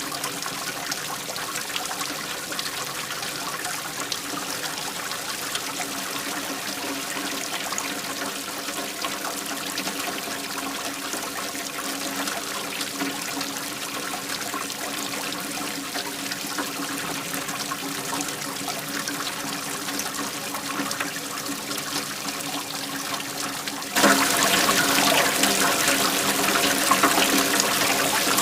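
Flowing waterfall: a steady rush and trickle of falling water, which jumps abruptly louder near the end.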